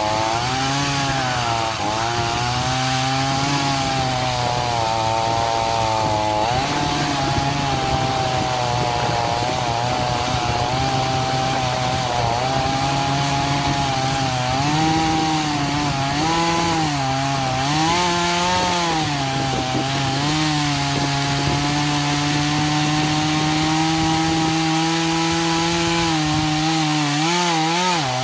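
Troy-Bilt TB4218 42cc two-stroke chainsaw running at full throttle while cutting into an oak stump. The engine pitch sags and recovers again and again as the chain bites into the wood, and holds steady for several seconds about two-thirds of the way through.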